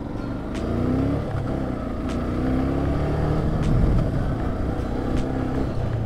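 Motorcycle engine running on the move, its pitch rising and falling as the revs change.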